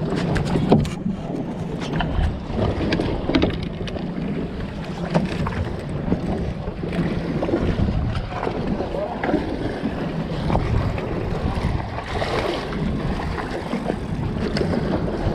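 Wind buffeting the microphone over water sloshing and splashing against a fishing boat's hull, with irregular small splashes at the surface alongside.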